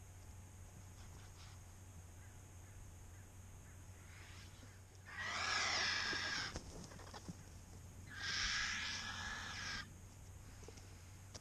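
Vultures feeding at a carcass give two harsh, hissing rasps about five and eight seconds in, each lasting about a second and a half.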